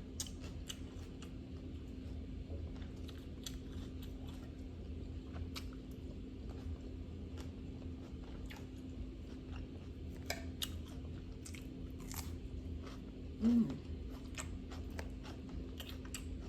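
Close-miked chewing of a grilled salmon and vegetable salad: wet mouth clicks and light crunching at an irregular pace, over a steady low hum. About two-thirds of the way through comes one brief, louder low hum from the eater.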